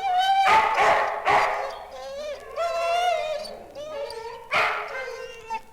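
Dogs barking and yelping in three loud bouts of pitched, gliding calls, with quieter whining between.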